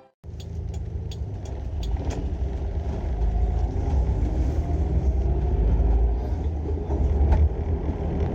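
Suzuki Jimny Sierra's engine running through a motorcycle silencer fitted on its exhaust: a low, steady exhaust note that grows gradually louder over the first several seconds.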